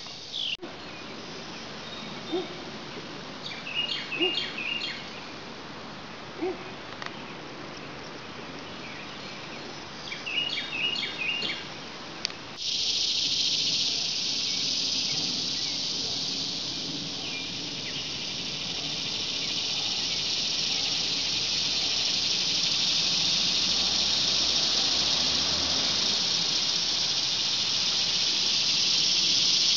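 Birds chirping in short bursts over a faint insect hum, then, from about twelve seconds in, a loud, steady, high-pitched cicada drone that slowly grows louder toward the end.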